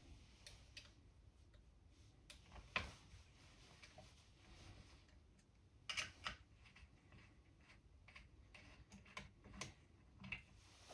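Faint, scattered clicks and taps of a small metal pin being handled at the underlever of an Air Arms TX200 air rifle. There is a sharper click about three seconds in and a quick cluster of clicks around six seconds.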